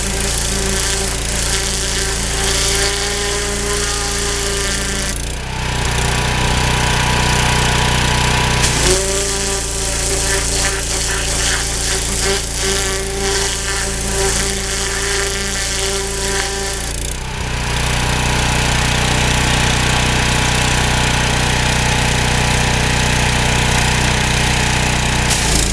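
A 3000 psi pressure washer running with its turbo-nozzle jet spraying hard onto a wet hide. The jet stops about five seconds in and again about seventeen seconds in, leaving the machine running on its own, with a lower, steadier tone. Spraying resumes about nine seconds in.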